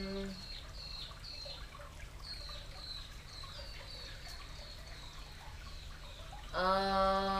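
A woman's long chanted "om" ends just after the start, and the next held "om" begins about a second before the end. In the pause between them a bird calls over and over in short, high, falling chirps, two or three a second.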